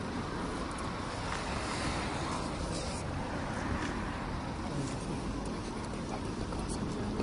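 Steady outdoor street background noise with a low rumble, and a few faint clicks from the handheld camera being moved.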